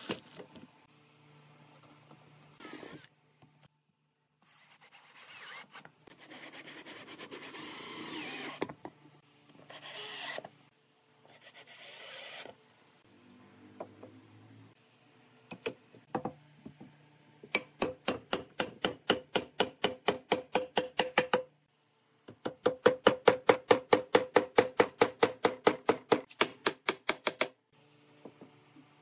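Cordless drill running in several short bursts, driving screws into wood. Later come two long runs of rapid, even clicking, about eight clicks a second, the loudest sound here.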